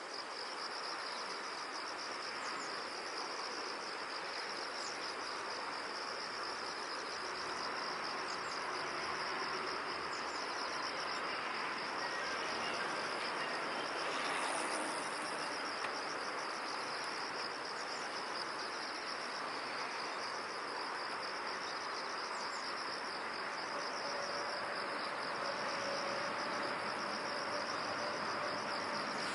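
Chorus of crickets trilling steadily in one unbroken high, fast-pulsing note over a soft background hiss, with a few faint short chirps above it.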